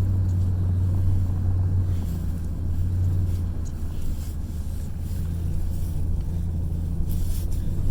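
Recovery vehicle's engine running steadily under load while towing a stuck car through snow on a kinetic rope: a low, even drone.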